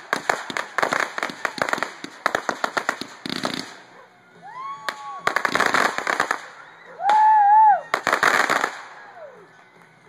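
Aerial fireworks crackling in dense runs of rapid pops, first for about three seconds, then in two shorter bursts. Between the bursts come drawn-out whoops from spectators, the loudest one about seven seconds in.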